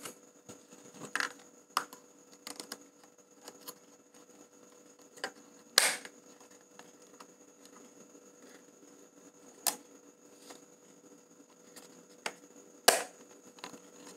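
Sharp plastic clicks and knocks from hands working a Canon EOS 650D DSLR body: an SD memory card going into its slot and the camera's controls being clicked. There are about ten scattered clicks, the loudest about six and thirteen seconds in.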